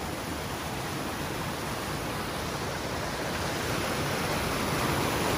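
Rocky mountain stream rushing over boulders in small cascades: a steady hiss of running water that grows slowly a little louder.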